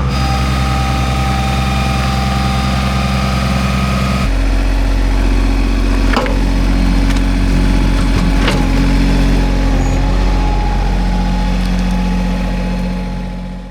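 An engine running steadily at idle; its tone shifts about four seconds in, with two sharp knocks near the middle.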